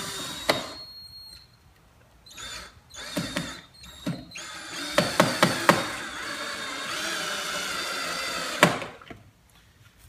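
Power drill driving a screw into the wall through the bottom of a plastic keypad: a short run, a few brief spurts, then a longer steady run of about four seconds that starts with a few clicks and stops sharply.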